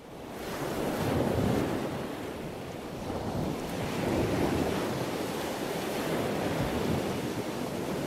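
Rushing water like surf, fading in and then swelling and ebbing every three to four seconds.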